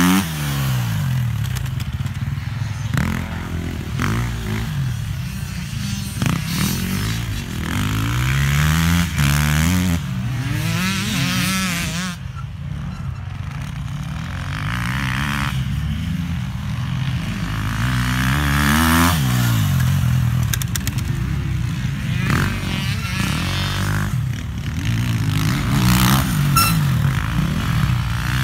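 Enduro dirt bike engines revving hard along a dirt course. The engine pitch rises and falls over and over with throttle and gear changes.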